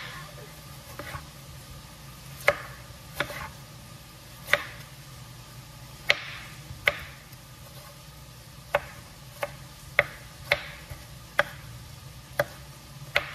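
Kitchen knife chopping tomatoes on a wooden cutting board: about a dozen sharp knocks of the blade on the board, unevenly spaced, roughly one a second, over a low steady hum.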